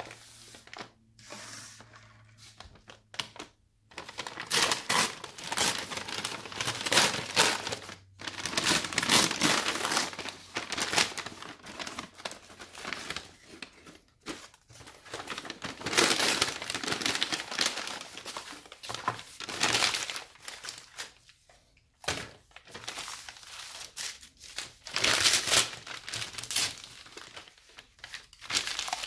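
A McDonald's brown paper takeout bag being handled, crinkled and torn open, rustling in repeated bursts with short pauses after a quiet first few seconds.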